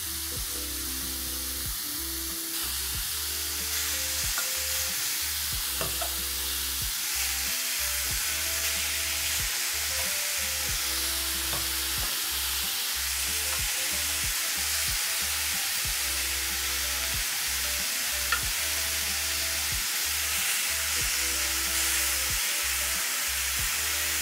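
Chicken breast strips sizzling in a very hot grill pan as they are laid in, the sizzle growing louder about four seconds in, with a few light clicks. Soft background music with a bass line plays underneath.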